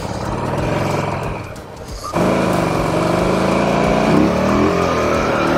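2006 Buell Ulysses V-twin motorcycle engine running under way. It gets suddenly louder about two seconds in, and its pitch climbs gently near the end as the bike accelerates.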